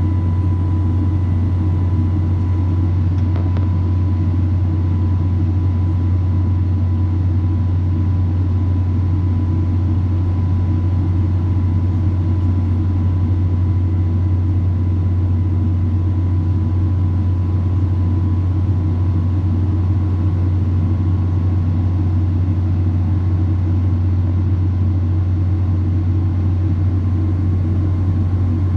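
Boeing 777 cabin noise in flight: the steady drone of the jet engines and rushing airflow, with a thin steady whine on top.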